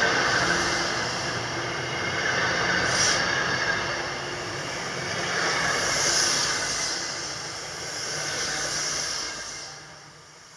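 MBTA commuter rail bilevel passenger coaches rolling past on the rails: a steady rushing clatter of wheels and track with a high hiss that swells and eases, and a brief sharp screech or clank about three seconds in. The noise fades away near the end.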